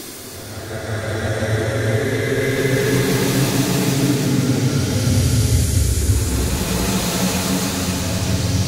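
Ambient background music: a low rumbling drone with held tones, swelling up over the first couple of seconds and then holding steady.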